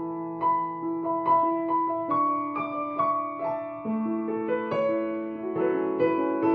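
Background piano music: single notes struck about twice a second over held lower notes.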